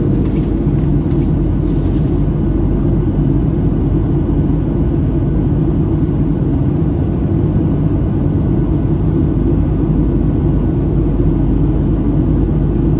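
Steady low rumble of a Boeing 737-700's cabin on approach: the CFM56-7B engines and the rush of air over the fuselage heard from a window seat beside the wing.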